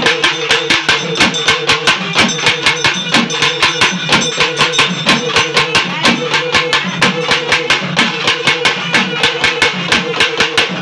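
Fast, steady ritual drumming, several strokes a second, with a repeating melodic line over it: music played to call the deity down into a devotee during a village-deity puja.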